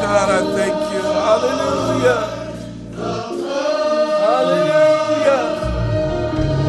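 Gospel choir singing worship music over sustained chords and a bass line. The music thins out briefly about three seconds in.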